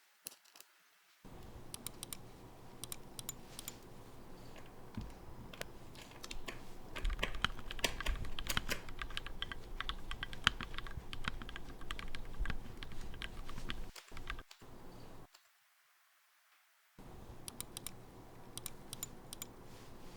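Typing sound test on a Tofu 60 custom mechanical keyboard with hand-lubed Gateron Milky Yellow linear switches and a brass plate, under clone GMK Olivia keycaps. The keystrokes come steadily, grow denser and louder in the middle, stop for a moment about three quarters through, then resume.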